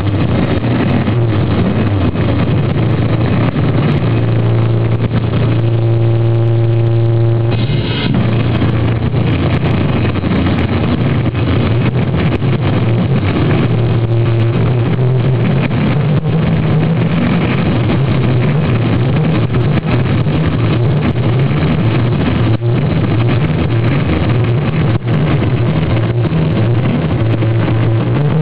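Sludge metal band playing live: a loud, heavily distorted, low guitar drone that overloads the recording. A held chord rings out clearly for about two seconds around six seconds in.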